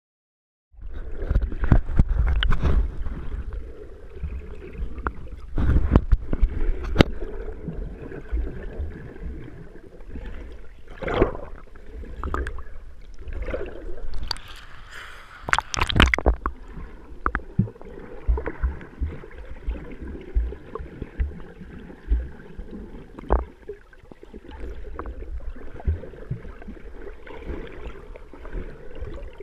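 Water sloshing and gurgling as heard through a GoPro's underwater housing, with many irregular knocks and low thumps as the camera is handled in the current. It starts abruptly about a second in, and a louder run of splashing comes in the middle, as the camera nears the surface.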